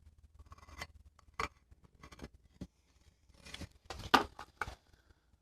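A scatter of light clicks, taps and short scrapes at irregular intervals in a small room, with the sharpest click about four seconds in.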